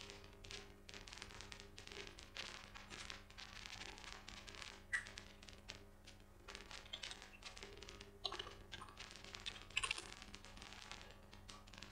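Computer keyboard typing and mouse clicking: a steady run of light key taps with a couple of sharper clicks about five seconds in and near ten seconds, over a faint steady electrical hum.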